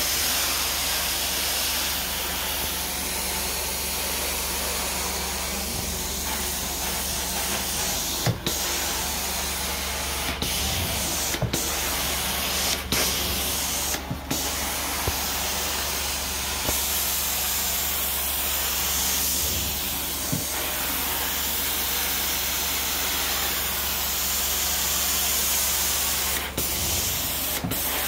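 Carpet-cleaning extraction wand spraying hot water into the carpet and vacuuming it back up: a steady rushing hiss over a low, even hum, broken by several brief dips.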